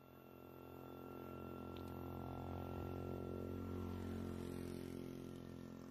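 A steady low engine-like hum at a constant pitch, growing louder over the first few seconds and easing off slightly near the end.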